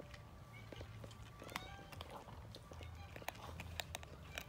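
Cat crunching dry kibble: irregular sharp crunches and clicks as it chews.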